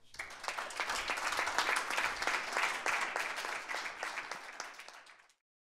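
Audience applauding: a room full of people clapping, starting suddenly, thinning a little after about three seconds and cutting off abruptly near the end.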